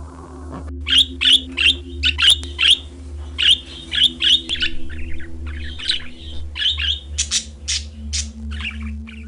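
A bird giving a long run of short, sharp calls, about two or three a second, over a steady low hum.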